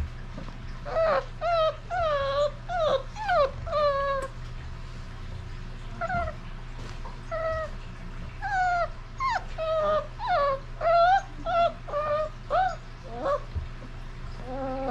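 Basset hound puppy whimpering: a string of short, high whines and yips, each bending up and down in pitch, in two runs with a pause of about two seconds between them. A steady low hum runs underneath.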